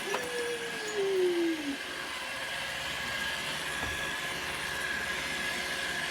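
Roomba robot vacuum running: a steady whir with a thin, high, steady whine. A click at the start, then a tone that slides down in pitch over the first two seconds or so.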